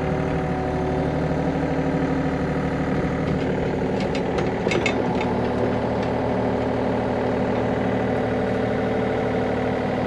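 Excavator's diesel engine idling steadily at a constant pitch, with a few light metallic clicks about four to five seconds in.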